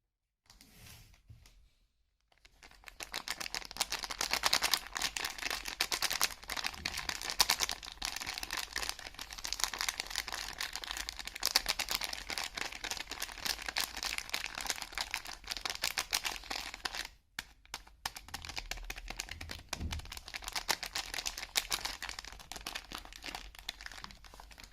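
Soap wrapping being crinkled and torn open by hand: a dense, continuous crackle of small crinkles, with a short pause about seventeen seconds in.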